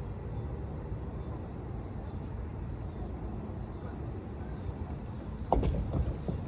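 Steady low outdoor rumble with no distinct tone, with a few short knocks about five and a half seconds in.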